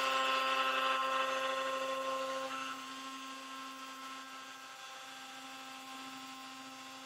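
CNC router's spindle, a trim router with a surfacing bit, running with a steady whine as it makes a flattening pass across a wooden board. The sound drops a little in level about two to three seconds in, then holds steady.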